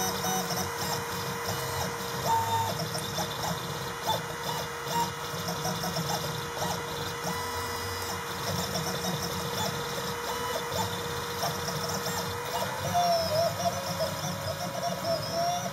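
Desktop CNC engraver running a job: its stepper motors whine in short notes that jump in pitch as the axes start, stop and change speed, over a steady whine that rises slightly near the end.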